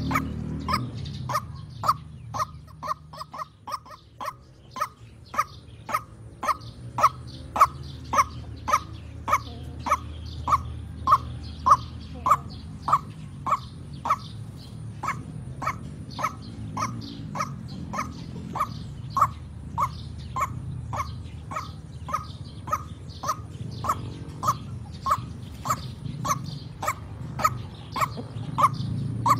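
White-breasted waterhen (ruak-ruak) calling in a fast, even series of short, harsh notes, about two a second, over a steady low hum. The recording is a lure call for trapping the bird.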